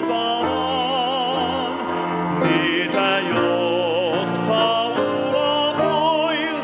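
A man singing in a classical style, holding notes with a wide vibrato, accompanied by a grand piano.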